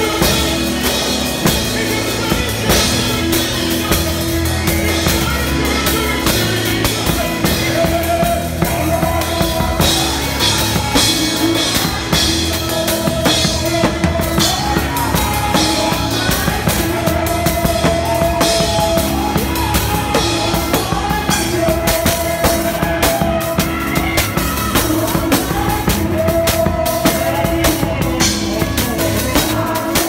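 Live band music driven by a drum kit played busily, with dense snare, kick and cymbal strikes throughout. Underneath runs a held low note, with a short melody line repeating over it.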